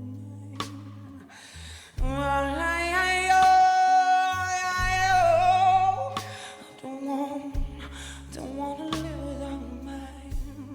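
A live band plays a slow blues while a woman sings. About two seconds in she holds a long, loud note that wavers near its end, and a shorter sung phrase follows over the bass.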